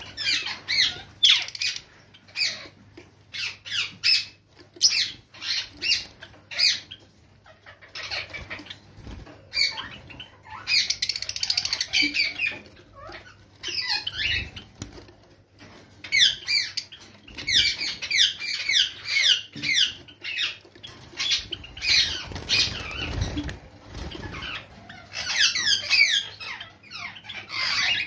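Several white Java sparrows chirping in a cage: runs of short, quick, high notes that come in bursts of a few seconds with brief pauses between.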